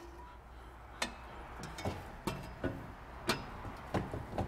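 Stainless steel exhaust pipe sections knocking and clinking against each other as they are worked together by hand: about seven sharp, irregular metallic knocks.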